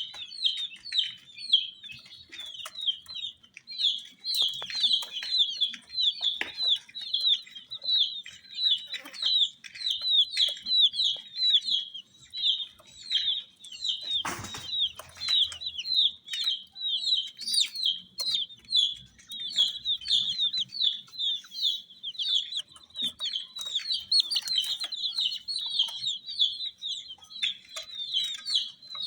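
Baby chicks peeping continuously: a rapid stream of short, high, downward-falling peeps, several a second. A short burst of noise about halfway through.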